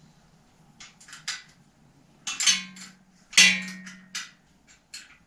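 Metal tools and bicycle parts clinking and knocking as a bike is worked on in a repair stand, with two louder metallic clanks about two and a half and three and a half seconds in that ring briefly.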